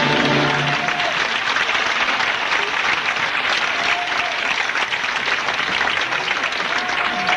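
A theatre audience applauding steadily, after the ballet music's last chord dies away within the first second.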